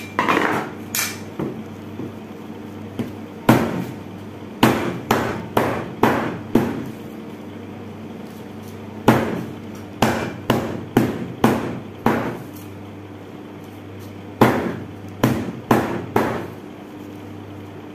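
A butcher's cleaver chopping mutton into pieces on a plastic cutting board. Sharp chops come in three runs of several quick strokes, with pauses between.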